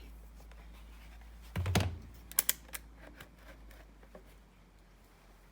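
A soft thump, then a string of light, irregular clicks, typical of a handheld digital multimeter's rotary selector dial being turned through its detents and the meter being handled.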